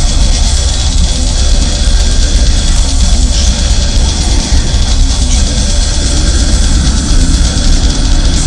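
Loud heavy metal music: distorted electric guitars over fast programmed drums, a dense, unbroken wall of sound without vocals.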